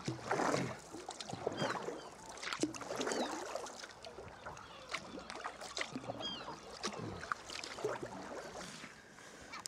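Sea kayak paddle strokes splashing and fast tidal water rushing along the hull, in uneven surges about once a second. A few short, high seabird calls sound above the water.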